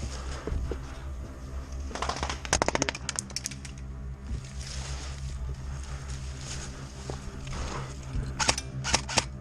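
Airsoft guns firing: a rapid full-auto burst of sharp clicks about two and a half seconds in, lasting about a second, then a few separate shots near the end.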